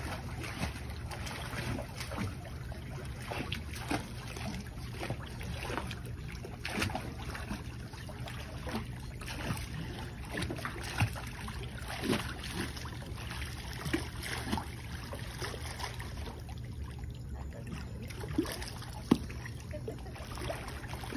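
Water splashing irregularly as a swimmer kicks and strokes on their back in a pool, with a few sharper splashes. A steady low hum runs underneath.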